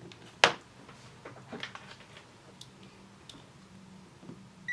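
Small handling clicks and taps as the test leads of a Zotek ZT203 pen-type multimeter are handled and a capacitor is taken off them, with one sharp click about half a second in. At the very end the meter gives a short high beep as its range button is pressed.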